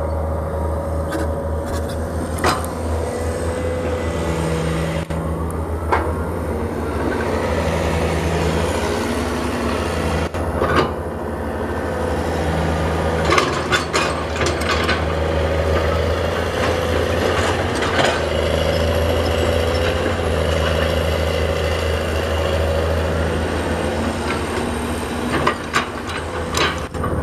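Diesel engine of a hydraulic crawler excavator running steadily under load while it digs soil, with occasional sharp metallic clanks from the bucket and tracks.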